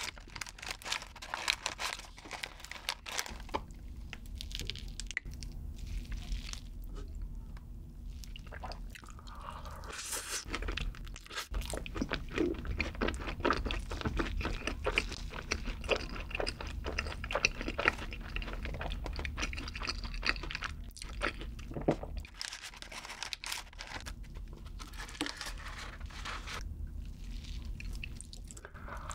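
Close-miked chewing and crunching of crispy garlic butter fries, a dense run of small crackles.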